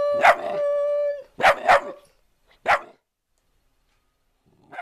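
A dog barking four short times in the first three seconds, the middle two close together, over a long held note that ends about a second in.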